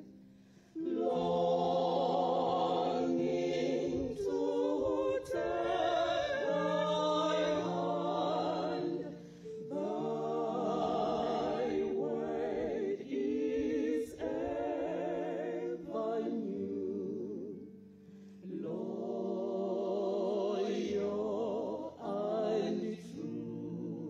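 A group of women singing a hymn together into microphones, in long phrases with vibrato and short breaks between them, over steady low held notes.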